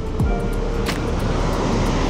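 Background music, a light instrumental cue, playing over the steady wash and hiss of surf breaking on the beach.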